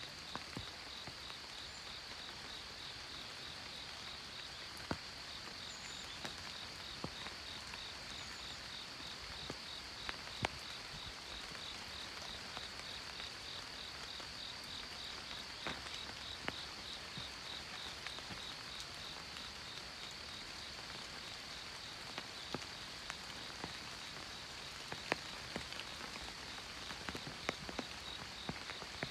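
Forest ambience: a steady high insect trill with an even pulsing chirp beneath it, about two a second, and scattered sharp ticks of dripping water.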